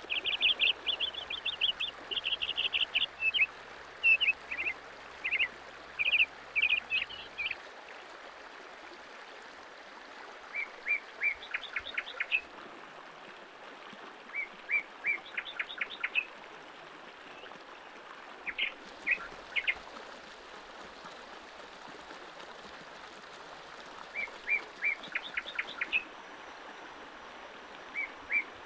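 A bird singing short, repeated phrases of quick chirps, with a dense run of chirping in the first several seconds and then a phrase every few seconds, over the steady rush of a shallow rocky stream.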